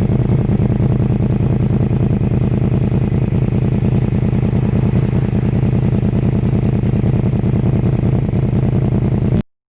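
Yamaha R1 crossplane inline-four motorcycle engine with an aftermarket exhaust, running at a steady speed with a throbbing, rhythmic beat. It cuts off suddenly near the end.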